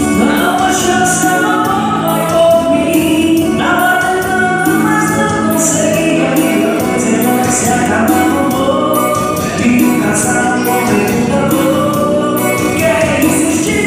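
Live forró: a man singing into a microphone over an electronic keyboard and a steady beat, played loud through PA speakers.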